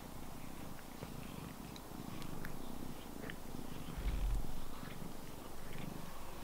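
A cat purring steadily close to the microphone, with a low thump about four seconds in.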